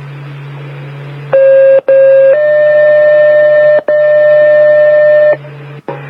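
Fire pager alert tones received over a radio: after a stretch of radio hiss, a steady tone sounds for about a second, then a slightly higher steady tone holds for about three seconds. This is the two-tone sequential page that sets off the firefighters' pagers for a test page.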